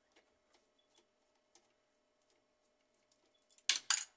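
A few faint ticks of a screwdriver working a screw loose in a laser printer's sheet-metal frame. Near the end come several loud, sharp clacks of metal tool and parts being handled and set down on the bench.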